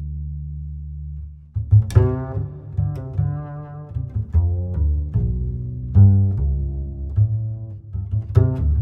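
Instrumental music: a held deep bass note, then from about two seconds in a melody of short, sharply started notes over a moving bass line.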